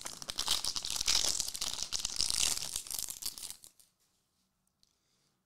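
A foil trading-card pack wrapper being torn open and crinkled by hand, a busy crackle lasting about three and a half seconds.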